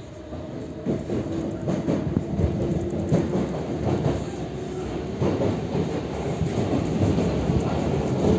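Inside a Paris RER C commuter train car as it gets under way: the rumble and clatter of the wheels and running gear grows steadily louder as the train picks up speed, with wheel clicks over the rail joints.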